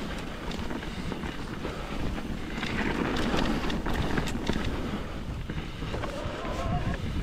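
Mountain bike descending a dirt trail: wind buffeting the microphone over the rumble of tyres on the ground, with frequent sharp knocks and rattles from the bike over bumps.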